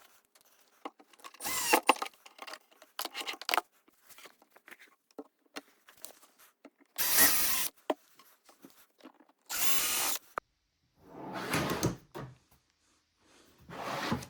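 Power drill driving screws to mount metal drawer slides, in four short bursts, with clicks and rattles of handling the hardware in the first few seconds.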